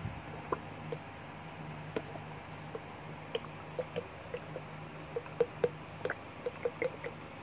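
Clear beaded serum gel squeezed from a plastic bottle onto lotion: a run of small wet pops and squelches as gel and air spurt out, coming faster about five seconds in.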